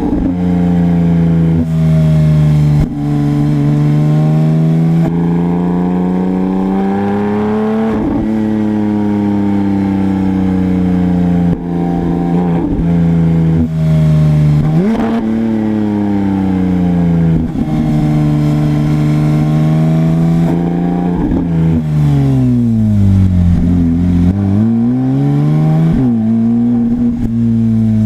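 Porsche 991 GT3 flat-six engine through a GMG aftermarket exhaust, driven hard: its pitch climbs and falls several times as the car accelerates and shifts, with a longer drop and pick-up a few seconds before the end.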